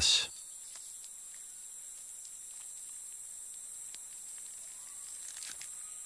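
Rainforest insect chorus: a steady high-pitched buzzing drone, with a few faint ticks.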